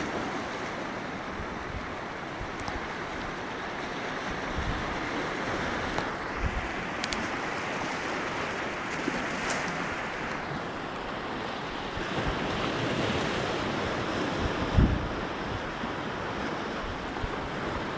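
Steady surf washing on a beach, with wind buffeting the microphone in low rumbles. A brief low thump stands out late on.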